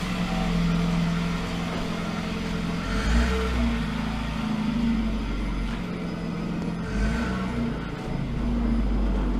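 Car on the move: engine running with a shifting pitch over a steady low road rumble.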